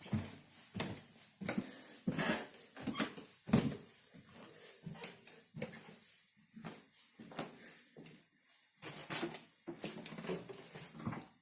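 Irregular knocks and clunks indoors, one or two a second, the handling noise of someone moving about a small room.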